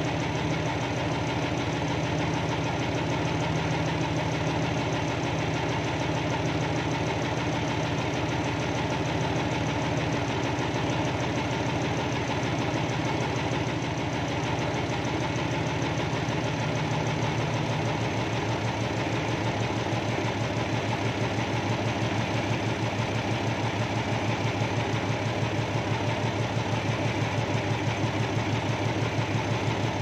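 Backhoe's diesel engine idling steadily, heard from inside the cab. About two-thirds of the way through its pitch drops and it settles into a lower, more pulsing idle.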